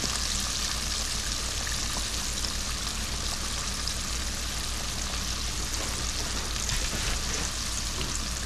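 Frog legs and shoulders frying in hot oil: a steady sizzle with a low steady hum underneath.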